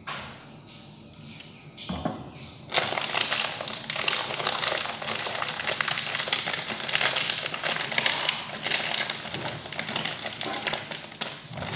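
Plastic bag crinkling and rustling as it is handled and opened, starting about three seconds in and going on without a break.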